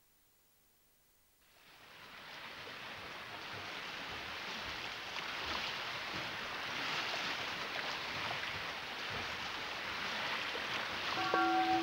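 A steady rushing noise, like surf, fades in out of silence about a second and a half in and slowly builds. Near the end a sustained ringing bell-like tone begins over it, opening the film's music.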